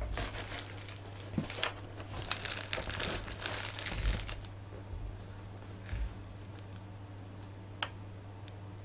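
Packaging crinkling and rustling as it is handled for about four and a half seconds, followed by a couple of light clicks.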